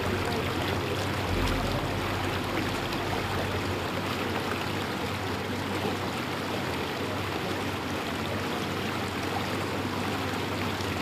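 Steady running noise of a moving tour boat: a low engine hum under a continuous rush of water and wind.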